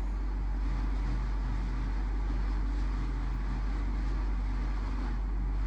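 A steady low hum that runs unchanged, with no separate knocks or voices standing out.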